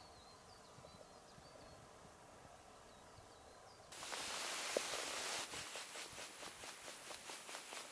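Quiet outdoor ambience with a few faint high chirps, then about four seconds in a steady hiss sets in suddenly, followed by soft rhythmic crunching, a couple of strokes a second, of footsteps on snow.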